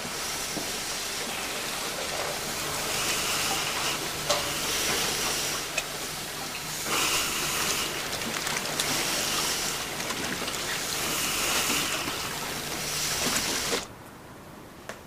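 Working laundry ambience: a steady hiss of steam and machinery over a low hum, with louder hissing swells every second or two. It cuts off suddenly near the end.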